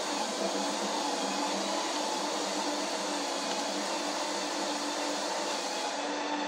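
Ninja Creami ice cream maker running its Ice Cream program: a steady motor whir as the spinning blade processes the frozen pint.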